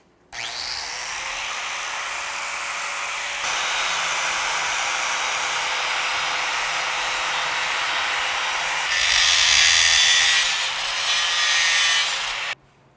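Angle grinder spinning up with a rising whine, then grinding the welded steel of a homemade flat-track slider shoe to blend the welds down. The grinding gets louder from about three and a half seconds in and is loudest around nine to ten seconds, then stops suddenly near the end.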